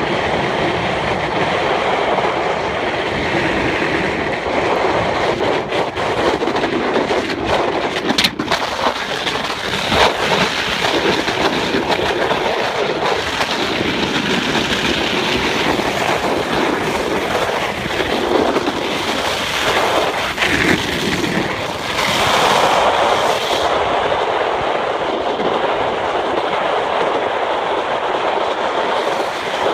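A boogie board sliding fast over an iced-over street: a loud, continuous scraping rumble with clattering chatter, and a few sharp knocks about eight to ten seconds in.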